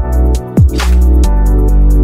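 Background music with a heavy sustained bass and deep kick drums that drop quickly in pitch, with a snare hit just under a second in.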